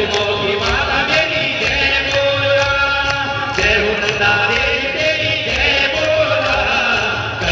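Hindu devotional song (bhajan) to the goddess, sung by a lead singer over a loudspeaker system with a steady percussion beat.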